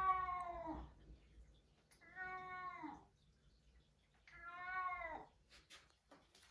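A domestic cat meowing three times, each meow about a second long and dropping in pitch at its end, with pauses of about a second between.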